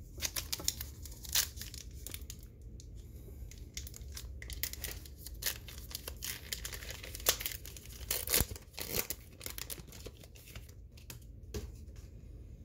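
A baseball card pack's wrapper being torn open and crinkled by hand: a run of sharp crackles, loudest about a second in and again around seven to nine seconds.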